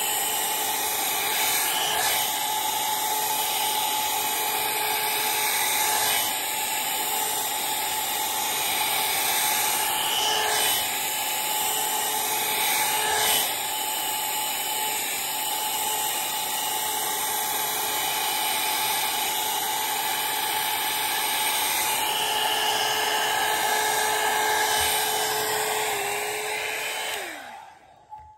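Handheld hair dryer blowing steadily with a whine, switched off about a second before the end, its pitch falling as the motor runs down.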